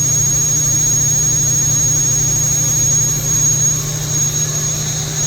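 Haas VF-3B vertical machining center spindle running steadily at 9,000 RPM: a steady high whine over a low hum. The spindle runs smoothly and quietly, a sign of healthy spindle bearings.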